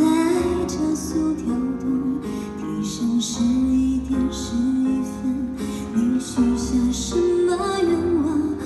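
Instrumental intro of a slow pop ballad: guitar backing with a gently wavering melody line over it.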